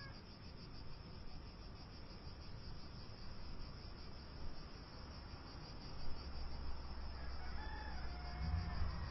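Steady, evenly pulsing high-pitched insect chirring, with a rooster crowing briefly near the end. A low rumble comes in about six seconds in.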